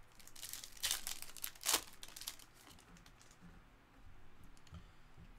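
Foil wrapper of a 2022 Panini Select Baseball card pack being torn open and crinkled, loudest about a second and a half in. It is followed by faint ticks as the cards are handled.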